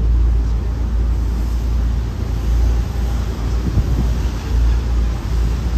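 Low, steady rumble of a passenger boat under way, with wind buffeting the microphone.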